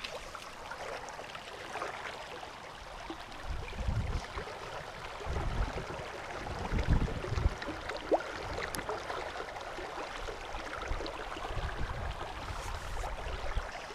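Shallow river running over a stony bed, a steady rushing hiss, with a few low rumbles on the microphone about four seconds in and again around six to seven seconds.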